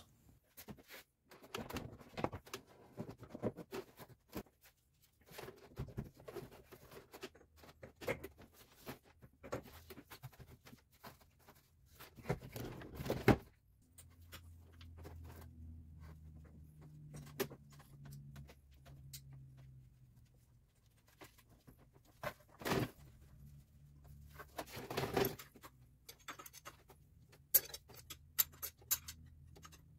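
Faint, scattered clicks, taps and knocks of hand tools and metal and plastic parts being handled, with a few louder knocks about 13 s, 23 s and 25 s in, as the fan shroud, fan and fan clutch are refitted in the engine bay.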